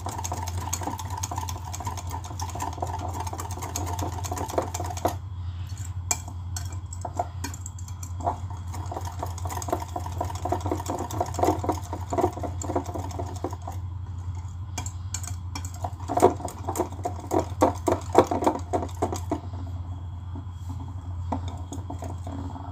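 Wire whisk beating a thin batter in a glass bowl: rapid clicking of the wires against the glass, loudest a little past the middle. A steady low hum runs underneath.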